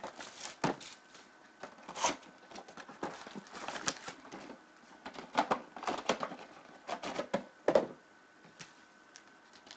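Cardboard trading-card hobby box being torn open and handled: irregular rustling, scraping and sharp clicks of cardboard and wrapping, with a few louder snaps.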